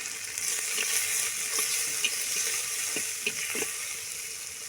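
Onion, garlic and ground chilli sizzling steadily in hot mustard oil in a clay pot, with a few short scrapes and knocks as they are stirred.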